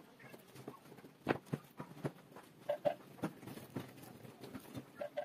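Scattered light taps and knocks of plywood pieces being handled and set down on a workbench, with a few short squeaky chirps a little past halfway.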